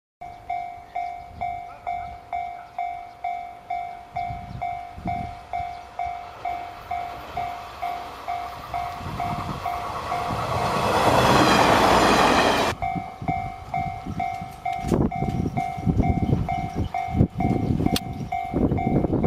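A level-crossing alarm bell dinging steadily, about two strikes a second. The JR West Kiya 141 inspection diesel railcar passes close by, its loud rush swelling around ten seconds in and cutting off suddenly. After that there are irregular low knocks under the bell.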